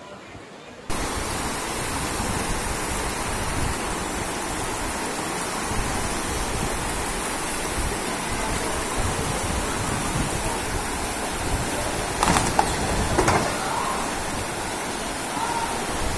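Floodwater rushing down a street in a steady torrent, starting abruptly about a second in. Two short, louder sounds stand out near the end.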